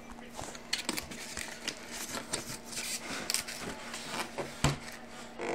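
Irregular scraping, clicking and rustling of a cardboard TV box being handled and opened, with a dull thump a little past four and a half seconds in, over a faint steady hum.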